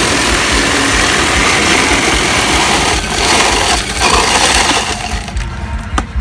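Ice shaver grinding a block of ice into shaved ice: a loud, steady grinding hiss that dips briefly twice and stops about five seconds in, followed by a few light clicks of handling.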